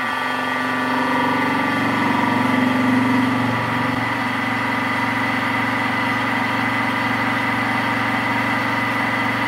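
Mini milling machine driven by a 1 HP servo motor through a toothed synchronous belt, running steadily as a fly cutter takes a light 0.010-inch facing pass while the table is hand-fed. A steady hum with a high whine over it, a little louder about two to four seconds in.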